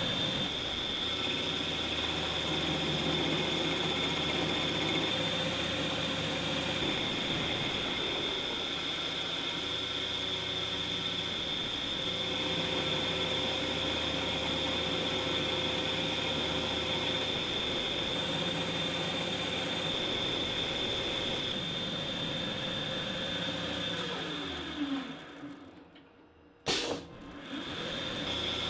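Homemade CNC lathe running its automatic program. The spindle speeds up at the start and then runs steadily under a constant high whine. Near the end it spins down, falls quiet, gives one sharp clack, and the machine starts running again.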